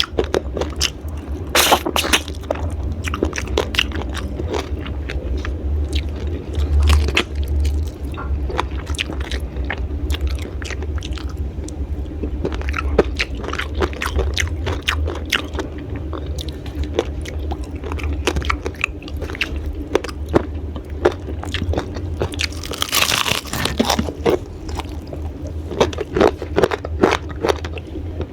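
Close-miked crunching and chewing of raw vegetables eaten with sambal, with many crisp bites and crackles throughout. A steady low hum runs underneath.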